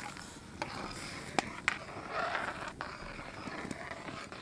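Metal ladle stirring potatoes and peas boiling in an aluminium kadai, over a low bubbling hiss. The ladle knocks against the pan with a few sharp clicks.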